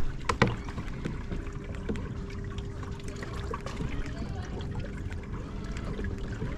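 Water trickling and lapping against a kayak's hull, with a faint steady hum through the middle and a few sharp knocks about half a second in.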